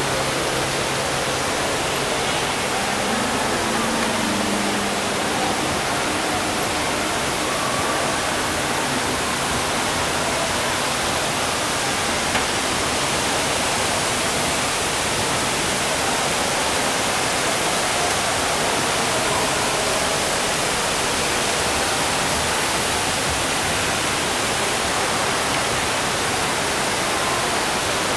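Steady, even rushing hiss of water from the Cloud Forest dome's indoor waterfall and fog-misting nozzles.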